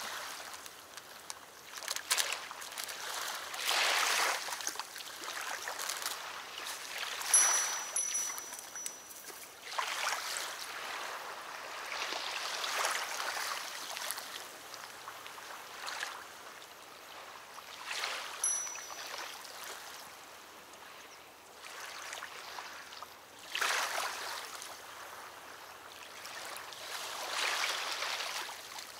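Small waves lapping at a river bank, rising and falling in irregular swells every few seconds. A brief high whistle is heard twice.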